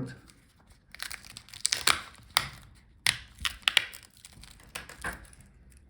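Irregular small clicks, scrapes and crinkling as the battery cable connector is worked loose from the laptop's motherboard.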